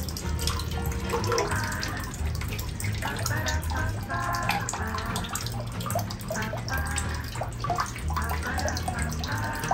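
Water splashing and sloshing in a tub as a pet monkey swims, with a run of short, high-pitched squeaks over it.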